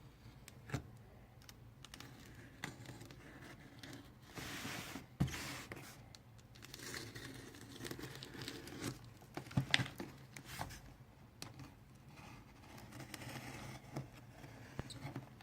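A cardboard box being opened by hand: tape slit and torn, with packaging rustling and crinkling and scattered knocks and taps. The longest tearing sound comes about four to five seconds in.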